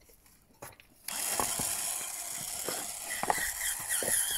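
JML Hurricane Spin Scrubber switched on about a second in, its motor and spinning brush head running with a steady whir and irregular clicks, brushed against a horse's coat.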